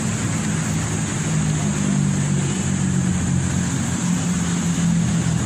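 Steady low engine hum of vehicle traffic, with an even hiss of street noise.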